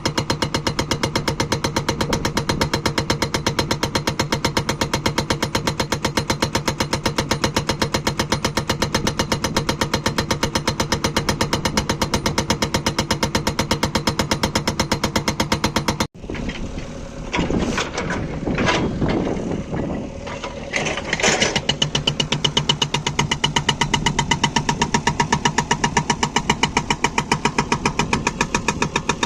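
Hydraulic rock breaker on a JCB backhoe loader hammering hard stone: a fast, even stream of blows, many a second, over the diesel engine running under load. About halfway through the hammering breaks off abruptly, and for several seconds there are irregular engine and clanking sounds before the steady hammering starts again.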